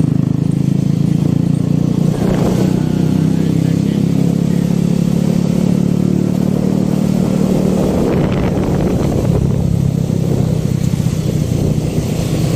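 Engine of a moving road vehicle running steadily at cruising speed, with rushing wind and road noise on the microphone.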